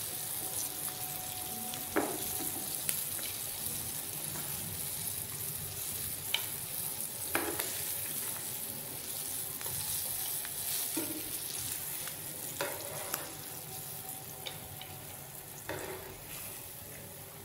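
Cornflour-coated mutton chops sizzling in hot oil in a frying pan, with a spatula and tongs knocking against the pan a few times as the chops are lifted out. The sizzle grows a little fainter toward the end as the pan empties.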